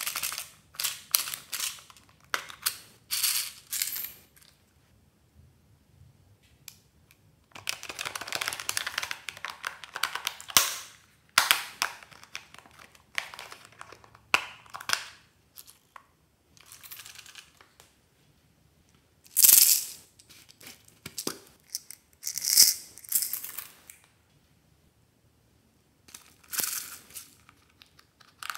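Hard plastic toys being handled: irregular clicks, taps and short scrapes as the battery-compartment covers on their backs are pried at and opened, with quiet gaps between the bursts.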